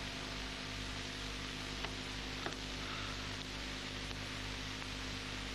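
Steady hiss and low electrical hum of an old film soundtrack between lines of dialogue, with two faint clicks a little under a second apart about two seconds in.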